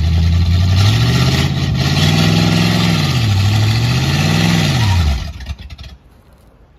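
Ford flathead V8 in a 1950 Ford F1 idling, then revved up twice, the pitch rising and falling each time. About five seconds in the revs drop away and the engine stops.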